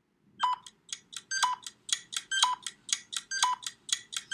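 Quiz countdown jingle of short, bright electronic plinks, about four a second, with a lower accented note once a second. It fills the pause for guessing after the question.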